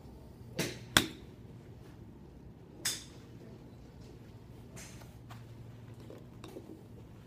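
A golf iron swung at a ball off a driving-range mat: a short rush of the swing, then a sharp, loud crack of the clubface striking the ball about a second in. A second, quieter noise follows near three seconds.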